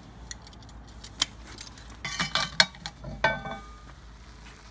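Metal clinking and rattling as the lid of a cast-iron Dutch oven is lifted off on a kamado grill, with a louder clang that rings briefly just after three seconds in.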